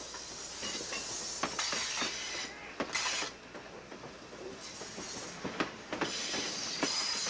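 Passenger coaches rolling past close by, their steel wheels clicking and knocking irregularly over the rail joints over a steady hiss.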